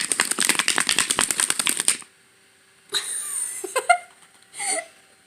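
Slime being stirred fast in a bowl: a dense run of quick sticky clicks that stops about two seconds in. Two short voice sounds follow.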